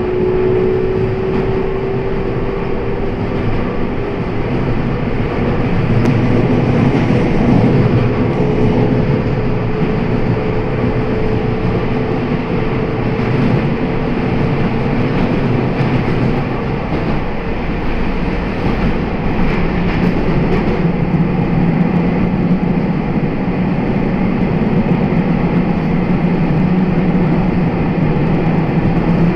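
Kobe Electric Railway electric train running along the track in a tunnel, heard from inside the rear cab: a steady rumble of wheels on rails, with a faint motor whine that rises a little and fades out in the first several seconds.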